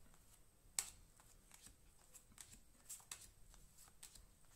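Faint ticks and light snaps of Star Wars CCG trading cards being flicked off a handheld stack and dropped onto a pile one at a time, the sharpest about a second in.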